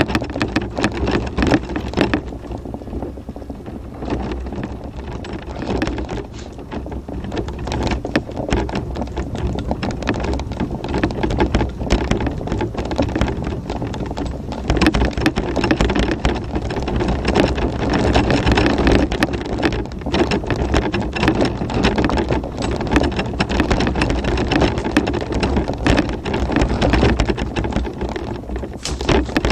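Tramper off-road mobility scooter driving over a rough chalk-and-stone track: a dense, continuous crackle of tyres crunching on loose stones and the machine rattling, over the steady low hum of its electric drive.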